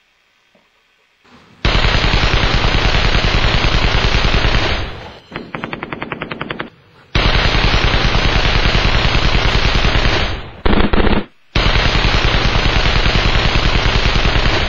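Rapid automatic gunfire: three long bursts of about three seconds each, starting and stopping abruptly, with a shorter, fainter rattle and a brief burst between them.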